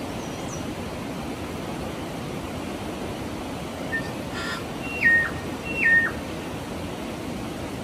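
A bird calling twice, each call a clear whistle that drops in a single step to a lower note, with a shorter note just before, over a steady rushing background.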